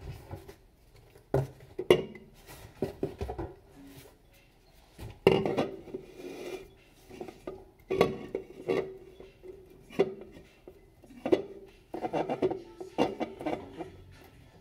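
Unopened tall aluminium beer cans being set down and shuffled into a row on a tabletop: a dozen or so knocks and light metallic clinks, some in quick clusters, a few ringing briefly.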